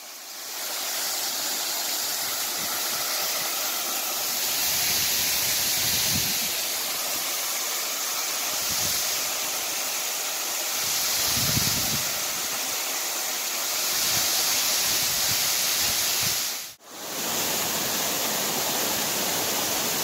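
Waterfall pouring into a rock pool: a steady rush of falling water. It cuts out for an instant near the end.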